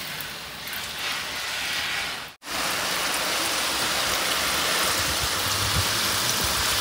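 Garden hose spray gun on a shower setting, spraying water onto strawberry plants and gravel: a steady hiss of falling water. The sound cuts out briefly a little over two seconds in.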